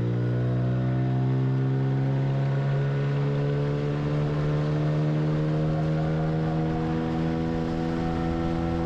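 Outboard motor running at high throttle, its pitch finishing a climb in about the first second and then holding steady as the boat runs.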